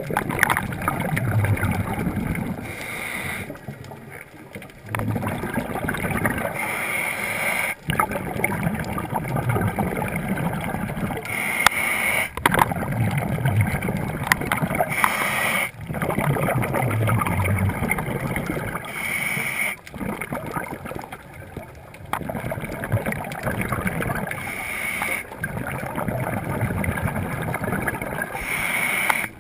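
Scuba diver breathing underwater through a regulator: a hiss on each breath in and a rush of bubbling on each breath out, in a regular cycle every few seconds.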